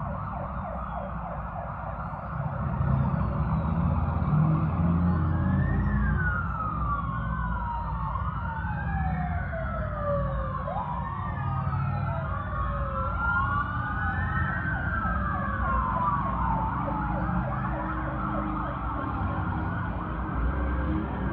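Several police sirens wailing at once, their rising and falling pitches overlapping, over the low rumble of vehicles: a motorcade passing. The sound grows louder about two seconds in.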